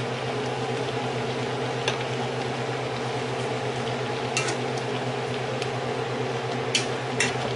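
A metal spoon clinks a few times against a steel wok while simmering curry is stirred, over a steady low hum.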